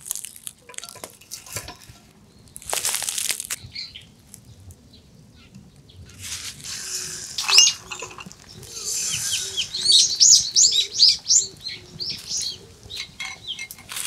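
Beaten eggs sizzling in a hot frying pan over a crackling wood fire. The sizzle gets louder about halfway through, and birds chirp rapidly over it in the second half.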